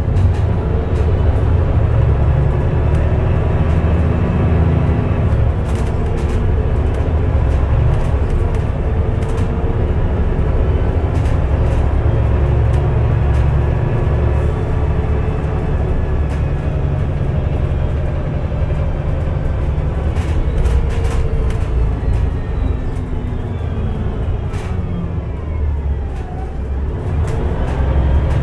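Mercedes-Benz O405NH Midi bus with a Voith automatic transmission under way: a steady engine rumble with a faint transmission whine and scattered rattles. In the later part the whine falls in pitch as the bus slows, then it rises again near the end.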